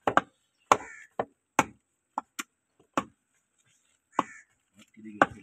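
Heavy meat cleaver chopping beef on a wooden log chopping block: about eight sharp, irregular strikes, then the chopping stops about three seconds in.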